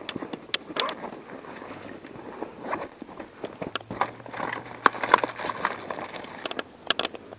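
Handling noise close to the microphone: irregular rustling with scattered sharp clicks and knocks, as of gear being rummaged through and moved around.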